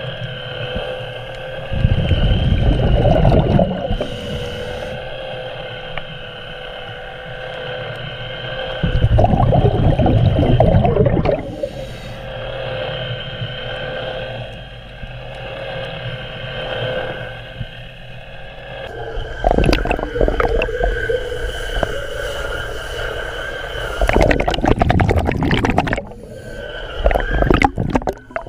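Underwater recording of a Remora Solo hull-cleaning tool running, its spinning brush giving a steady whine against the boat hull. Loud low bubbling bursts break in about five times.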